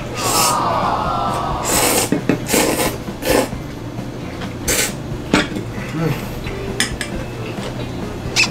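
Ramen noodles slurped with a long, dense slurp at the start, followed by a series of short sharp slurps and sucks. Light clatter of metal chopsticks against a stainless steel bowl.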